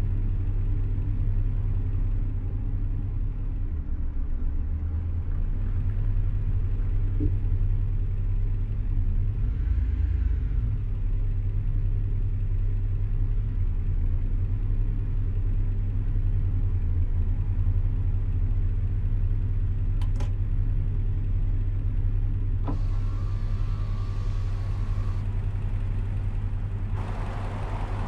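Steady low rumble of a car, heard from inside the cabin, with a couple of brief clicks and a short hiss near the end.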